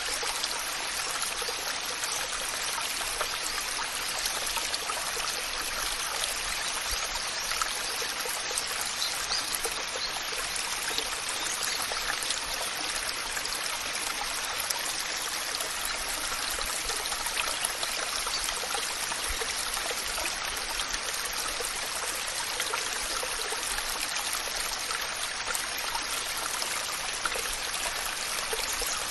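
Waterfall, a steady rushing and splashing of falling water with no change in level.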